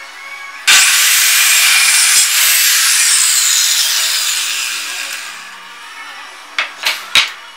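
Handheld electric circular saw starting abruptly and cutting through plywood for about a second and a half, then winding down with a falling whine as the blade coasts to a stop. Three sharp knocks of wood being handled come near the end.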